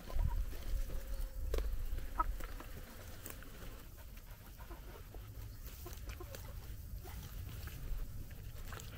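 Chickens clucking softly now and then over a low rumble.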